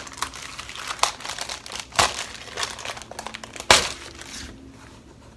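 Clear plastic sleeve crinkling as it is opened and a stiff card print is slid out, with a few sharp crackles, the loudest about two seconds in and just before four seconds. The rustling dies down near the end.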